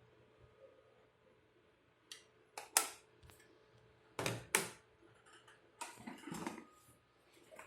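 Small hard objects clinking and clattering as they are handled, a few separate sharp clicks and short rattles, over a faint steady hum.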